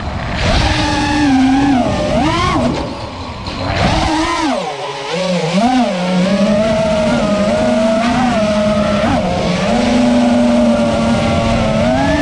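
FPV racing quadcopter's brushless motors and propellers whining, the pitch swooping up and down with throttle changes. About four to five seconds in the throttle drops and the whine sinks, then it holds a steadier tone with small surges.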